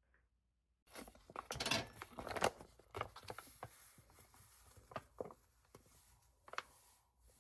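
Light, irregular taps, clicks and rustling, starting abruptly about a second in after near silence.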